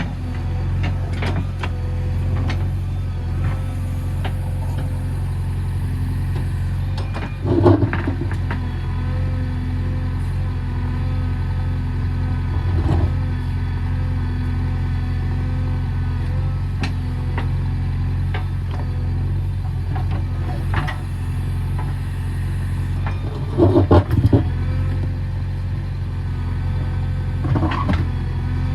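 JCB 3DX backhoe loader's diesel engine running at a steady speed, with a few short knocks and clanks, the loudest about eight and twenty-four seconds in.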